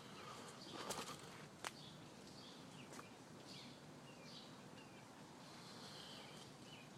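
Quiet outdoor ambience with faint birds chirping now and then, and a few light clicks in the first three seconds.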